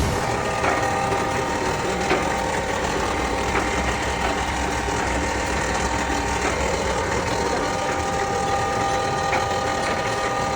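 250-litre half-bag concrete mixer running steadily: a continuous mechanical rumble with a steady whine from the drive and a few light knocks.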